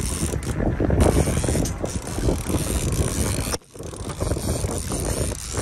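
Boat engine running, with wind buffeting the microphone; the sound cuts out briefly about three and a half seconds in.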